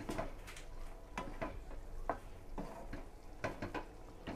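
Spatula stirring chicken and vegetables in sauce in a non-stick frying pan, making irregular clicks and knocks against the pan.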